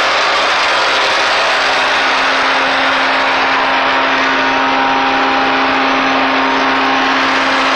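Bulk tanker's pneumatic blower and truck engine running steadily, a loud rushing hiss with a steady hum beneath it, as air is pushed through the trailer's piping for unloading plastic resin.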